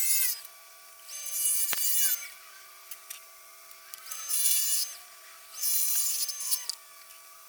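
Wood lathe turning a burl blank: a gouge cuts in repeated passes of about a second each, four times, over the steady whine of the running lathe, with one sharp click.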